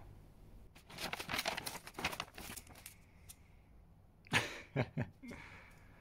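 Paper takeaway bag rustling and crinkling as it is opened and the food containers inside are handled, in two spells: one starting about a second in, and a louder one a little past four seconds.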